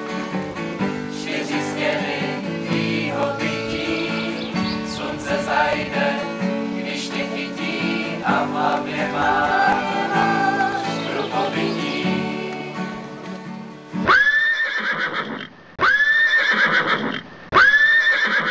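Instrumental music, then a horse whinnying loudly three times in quick succession, each call rising and then falling in pitch over about a second and a half.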